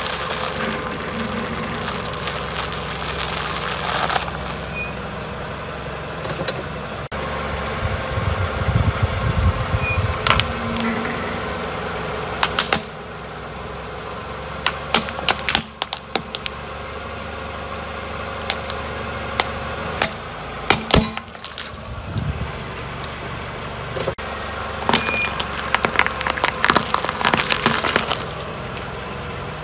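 A car engine idling while its tyre rolls slowly over objects on concrete and crushes them one after another. A block of dry instant noodles crunches first, a plastic toy car gives sharp cracks, and leafy greens are crunched flat.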